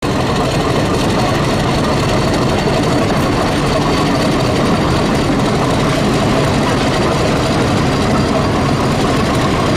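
Heavy diesel locomotive engine running steadily as a train of passenger coaches rolls past.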